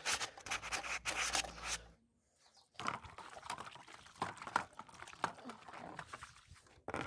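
Rapid back-and-forth sanding strokes on an old 1950 lamp under restoration, stopping about two seconds in. After a short pause come scattered, lighter scrapes and clicks.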